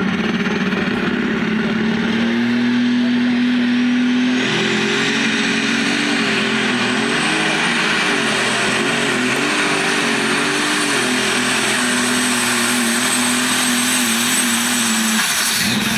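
Super stock pulling tractor's multi-turbo diesel engine running hard under load. A high turbo whistle rises slowly over the first several seconds, and the engine note goes louder and fuller about four seconds in. The engine pitch then wavers up and down as it drags the sled and the tyres spin, until the engine note drops near the end.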